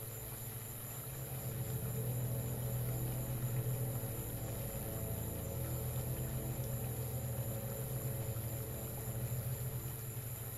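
Steady low electronic drone with a faint high hiss, swelling a little louder about a second and a half in.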